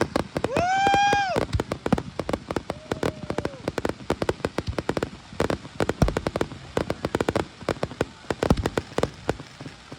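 Fireworks display: a rapid run of crackling cracks and pops, with a brief whistling tone about a second in.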